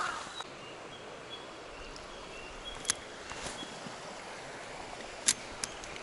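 Footsteps crunching on a river gravel bar stop within the first half second. Then a steady hiss of flowing stream water continues, with faint short high bird chirps and a few sharp clicks, the loudest about five seconds in.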